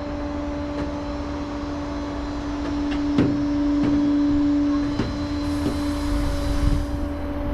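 A steady mechanical drone with a constant hum, swelling a little about halfway through, with a few faint knocks.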